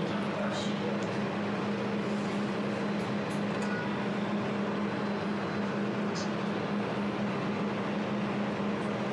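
A 200-watt jewelry laser welding machine running with a steady hum and whirr from its cooling system, as the machine starts up after being switched on. A few faint ticks sound along with it.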